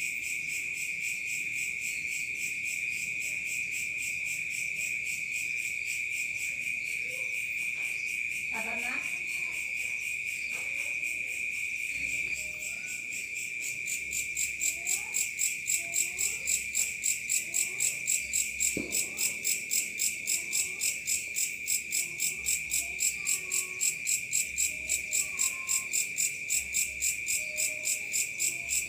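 Night chorus of crickets: a steady high trill that becomes a rhythmic, evenly pulsing chirp about halfway through. Faint short rising calls sound in the background.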